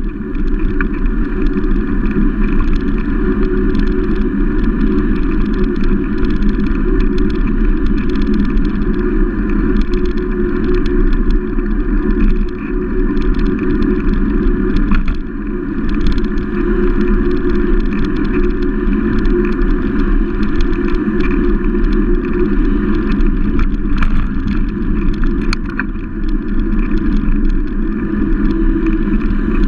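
Steady wind buffeting and road rumble on a handlebar-mounted camera on a moving bicycle, with light clicks and rattles from the mount over bumps in the road.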